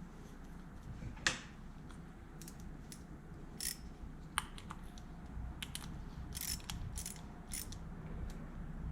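Ratchet wrench clicking in short bursts, with scattered clicks between them, as the carburetor's float bowl fastener is snugged up.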